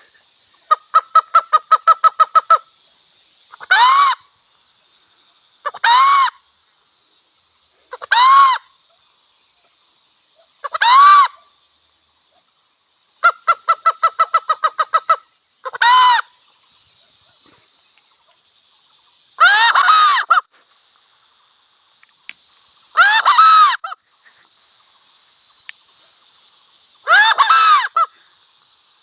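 Wild hen and rooster calling: two rapid trains of short clucks, and about eight separate rising-and-falling calls of about a second each, spaced a few seconds apart. A steady high-pitched hiss runs underneath.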